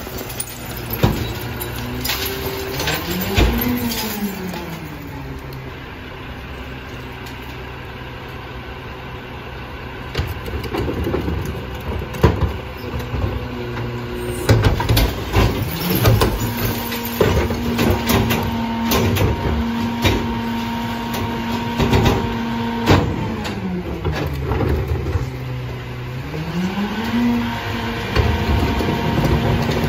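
Rear-loader garbage truck's diesel engine speeding up and holding high to drive the hydraulics, then dropping back to idle. This happens briefly near the start, for several seconds in the second half, and again near the end. Sharp knocks and bangs of plastic recycling carts being tipped and shaken out into the hopper.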